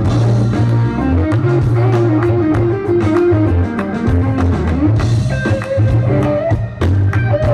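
Live blues band playing an instrumental passage: electric guitar lines over bass guitar and a drum kit, with no vocals.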